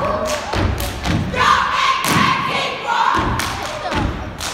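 Step team stomping on a wooden stage, a run of sharp thuds several times a second in an irregular rhythm. About a second and a half in, a burst of shouting voices rises over the stomps for a couple of seconds.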